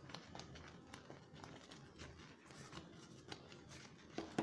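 Faint, scattered clicks and ticks as sugar is tipped from a bowl into a thick, bubbling milk-powder mixture in a non-stick pan, then one sharp knock near the end.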